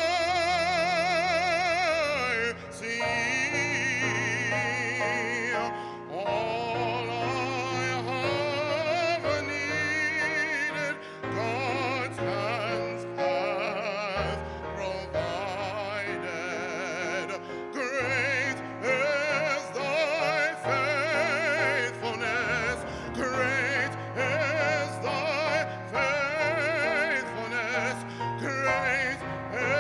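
A man singing solo with a wide vibrato and long held notes, accompanied by an electronic keyboard playing chords and bass.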